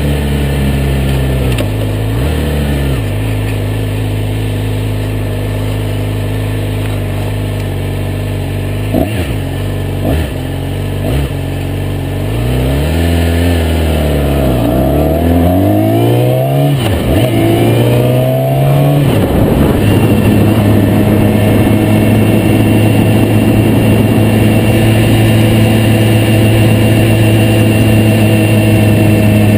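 Yamaha YZF-R6 inline-four engine running on the road during its break-in, heard from a tank-mounted camera with heavy wind noise on the microphone. The engine note holds steady, rises and falls through several gear changes about halfway through, then settles into a steady, higher cruise.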